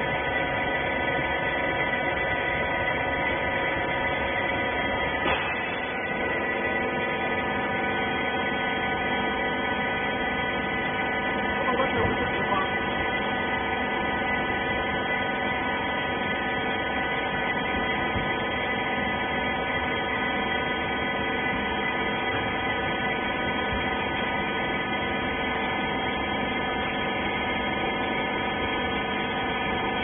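Wiper rag baler's electric motor and hydraulic pump running steadily, a constant hum with several steady tones, and a single knock about five seconds in.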